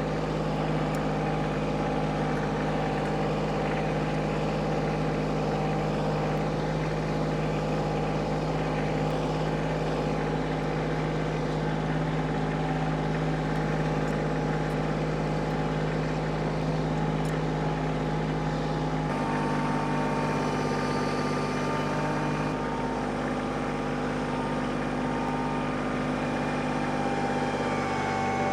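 A machine's engine running steadily, its pitch shifting slightly about two-thirds of the way through.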